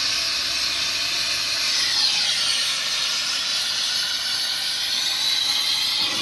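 Welding torch flame hissing steadily, a dense high hiss with slowly shifting tone.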